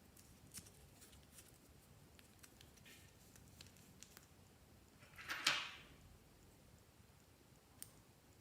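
Slime being handled: faint scattered sticky clicks, with one louder half-second squish a little past five seconds in and a single click near the end.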